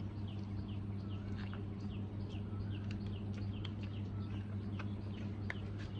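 A bird chirping over and over, about two or three short falling chirps a second, over a steady low hum, with a few faint clicks.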